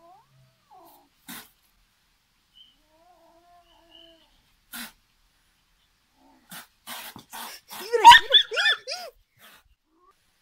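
Kitten hissing defensively at a dog in a few short bursts, then letting out a quick run of five or six short squealing cries that rise and fall in pitch, about two thirds of the way in.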